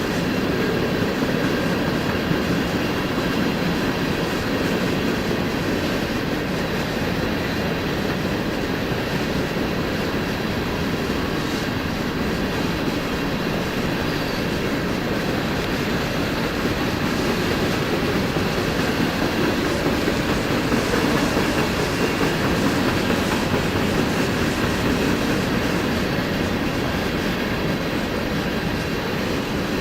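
Union Pacific freight train rolling past on the rails, a steady clatter of wheels over the track.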